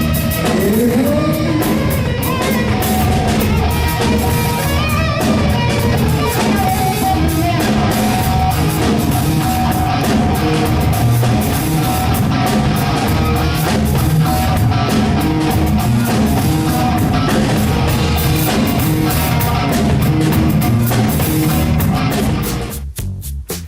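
Loud band music with a steady beat, no clear words; near the end it drops abruptly to a sparser beat.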